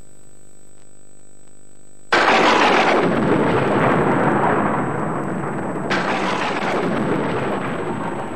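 A steady low electrical hum, then about two seconds in a loud rumbling crash starts suddenly and rolls on, with a second crash about six seconds in.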